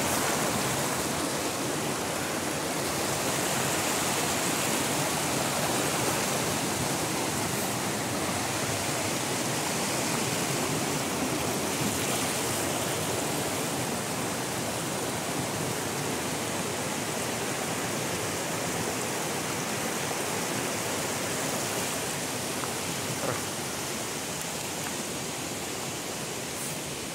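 Stream water rushing over rocks in rapids: a steady, even rush that grows slightly fainter toward the end.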